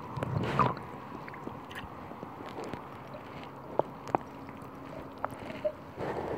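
Close handling noise on a small boat on open water: a brief rush in the first second, then scattered sharp clicks and knocks over a low wash of lapping water.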